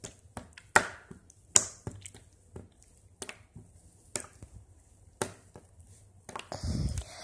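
Thick, jiggly cookie dough slime being stretched and dropped, slapping and plopping down in about half a dozen sharp wet smacks, with a longer squelch near the end that sounds like water.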